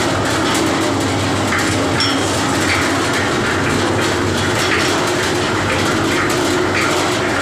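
Half-bag concrete mixer running steadily, its motor and rotating drum making a continuous mechanical drone with a repeating clatter.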